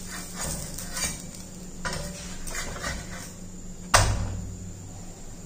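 Wooden spatula scraping and tapping on a metal tawa as a jowar roti is turned over, with a sharp knock about four seconds in.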